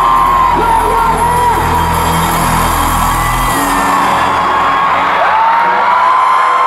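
Live pop concert music over an arena sound system, heard from within the crowd, with fans screaming and whooping nearby. A deep, sustained bass tone stops about three and a half seconds in.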